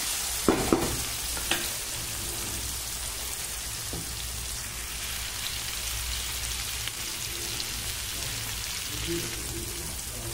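Chopped onion and tomato sizzling in oil in a wide pan. A steel spatula scrapes and knocks against the pan a few times in the first couple of seconds, then the frying goes on as a steady sizzle.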